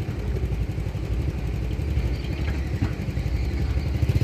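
An engine running steadily at low revs: a low, evenly pulsing rumble.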